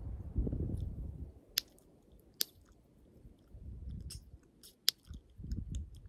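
Chewing gum close to the microphone, with soft wet mouth sounds and three sharp gum pops: about a second and a half in, near two and a half seconds, and near five seconds.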